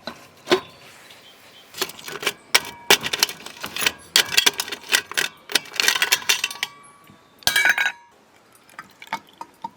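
Small hard kitchenware items clinking and clattering as they are handled, in a run of sharp clicks that is busiest through the middle, with one louder clatter near the end.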